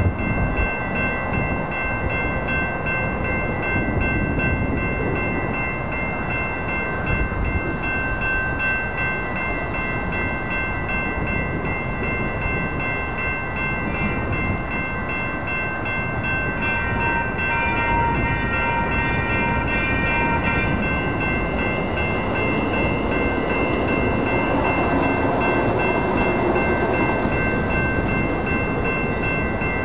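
Railroad crossing warning bells ringing steadily at an activated light rail crossing. For about four seconds past the middle a second pitched tone sounds over them, and near the end the rumble of a light rail train approaching builds up.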